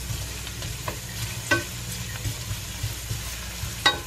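Diced red onion sizzling in hot coconut oil in a stainless steel pan while a wooden spatula stirs it, knocking against the pan three times, loudest near the end.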